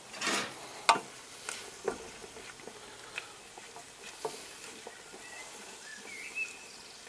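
Wooden spatula scraping and knocking against a stainless steel gastronorm pan while onions, bacon cubes and pepper strips are stirred: a longer scrape at the start, a sharp knock about a second in, then scattered lighter scrapes and taps.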